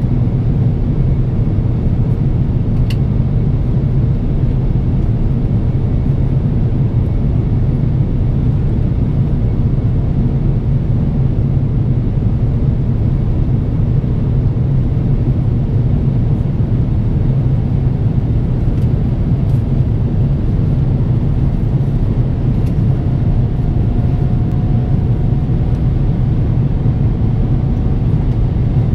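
Steady cabin noise inside an Airbus A350-900 in flight: the low, even drone of its Rolls-Royce Trent XWB engines and the airflow over the fuselage. A faint higher tone comes in near the end and rises slightly in pitch.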